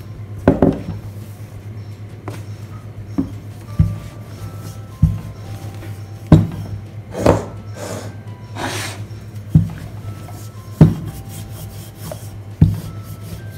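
Rolling pin being pushed back and forth over a thin sheet of puff pastry on a wooden table: a knock or thud about every second or so as it comes down and reverses, with soft rubbing as it rolls. Faint background music underneath.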